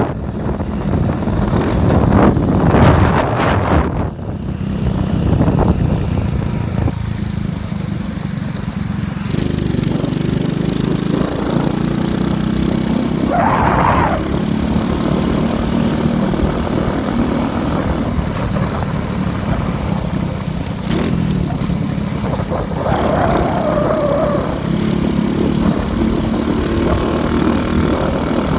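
Motorcycle engine running steadily while riding, with a louder rushing noise in the first few seconds. Two brief higher-pitched sounds come partway through and near the end.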